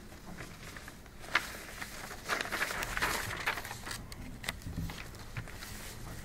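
Sheets of paper rustling and pages being handled on a table, in short scattered rustles, over faint room hum.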